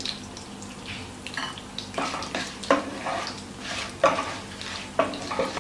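Hot oil sizzling as dried red chillies, chana dal and urad dal fry for a South Indian tempering, with a wooden spatula stirring and scraping the nonstick kadai in several strokes from about two seconds in.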